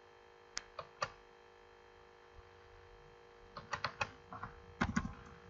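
Computer mouse and keyboard clicks: three separate clicks within the first second, then a quick run of keystrokes near the end as a number is typed in, over a faint steady hum.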